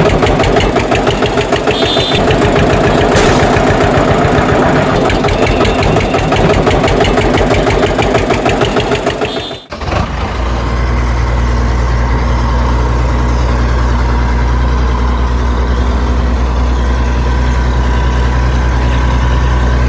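An engine running: a fast, rattling chug for about the first ten seconds, then an abrupt change to a steady low engine hum that cuts off near the end.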